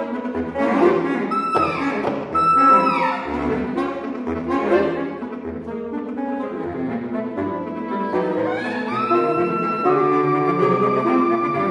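Saxophone quartet (soprano, alto, tenor and baritone) playing a tango. It opens with short accented chords with falling slides, then holds a high note near the end.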